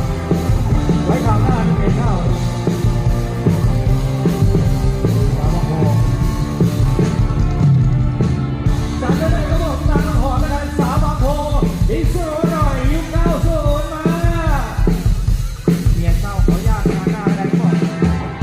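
Live Thai ramwong dance band playing, with a steady beat and heavy bass. A lead melody with bending pitch comes in about halfway through.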